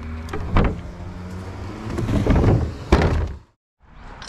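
Plastic wheelie bin being handled and its lid shut: a few hard knocks and thumps with some clatter, the loudest thump about three seconds in, over a steady low hum.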